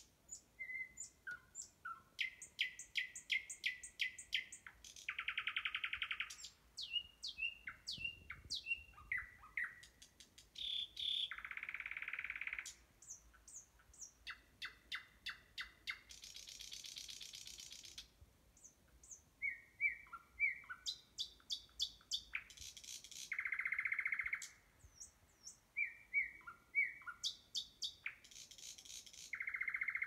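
Nightingale singing: varied phrases of fast repeated notes, short falling whistles and buzzy rattles lasting a second or two, separated by short pauses.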